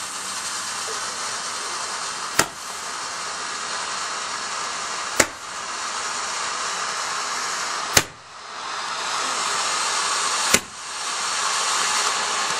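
A garden firework hisses steadily as it spouts sparks. Four sharp bangs, about three seconds apart, break into the hiss as it fires shots into the air, and the hiss drops briefly and builds again after each one.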